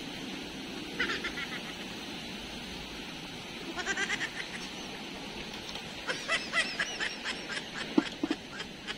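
Birds calling in three bursts of rapid chattering calls, about a second, four seconds and six seconds in, over steady background noise, with a sharp click near the end.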